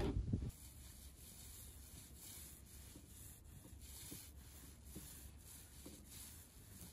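A brief knock of wooden trim boards being handled, then faint, soft rubbing of small foam paint rollers over wood siding, with a stroke about every second.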